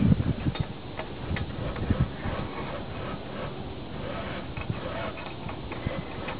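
Irregular light metallic clicks and ticks from climbing hardware on a steel lattice tower, over a low rumble of wind on the microphone.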